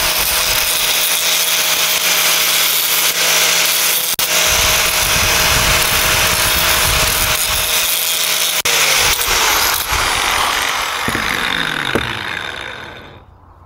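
Angle grinder grinding the edge of a small steel patch disc held in locking pliers: a steady motor hum under loud grinding hiss. About nine seconds in it is switched off and its pitch falls as it winds down.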